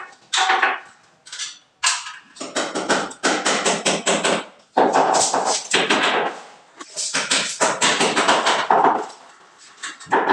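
Rapid knocking and clattering in bursts of one to two seconds, with short pauses between the bursts.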